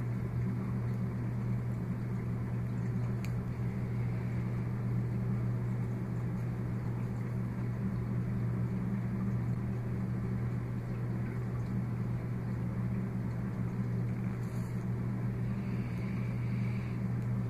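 A steady low hum with a faint hiss above it, unchanging and without any separate knocks or strokes.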